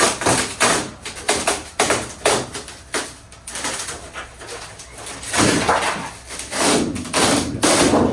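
A rapid, irregular run of sharp knocks and cracks, several a second, with longer rough scraping or tearing noises about five and seven and a half seconds in.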